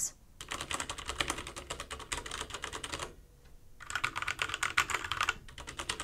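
Typing on a mechanical keyboard with Cherry MX Brown tactile switches: a rapid run of key clacks, a short pause about halfway, then another run.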